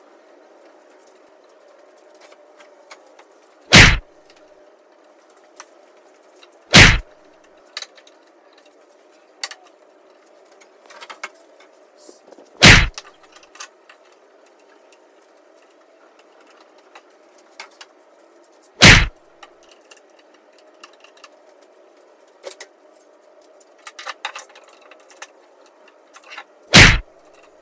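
Five loud, sharp whacks spaced several seconds apart. Between them, faint clicks and clatter of bar clamps being set and tightened across a glued-up board.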